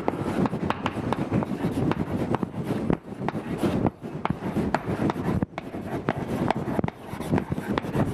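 Chalk writing on a blackboard: quick taps and scratches as the letters are written, with brief breaks about three, four and five and a half seconds in.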